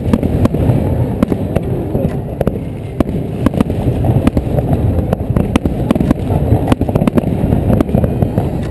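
Aerial fireworks shells bursting in quick succession: many sharp bangs and crackles over a continuous low rumble.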